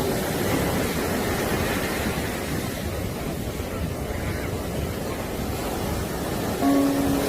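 Ocean surf washing steadily, a continuous rushing of waves. Near the end a plucked note of soft harp music sounds over it.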